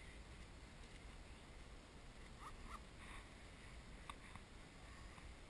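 Near silence: a low steady rumble with a few faint, short chirps or squeaks in the middle.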